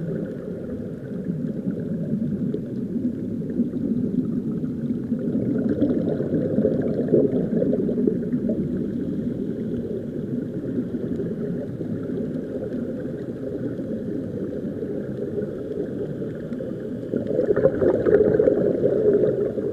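Muffled, steady underwater rumble and bubbling as air vents from sea-walk diving helmets, heard through an action camera's waterproof housing. It swells louder for a couple of seconds near the end.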